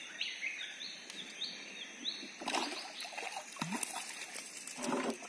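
A bird calls a run of about five short, repeated sweeping notes. Then, from about halfway through, a hooked fish splashes and thrashes at the water's surface beside the boat. A steady high drone runs underneath.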